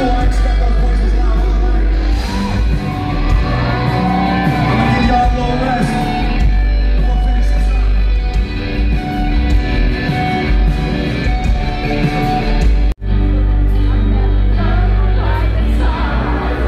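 Live rock band playing loud through a venue PA, heard from the crowd, with a voice singing, electric guitar and heavy bass. The sound cuts out for an instant about 13 seconds in.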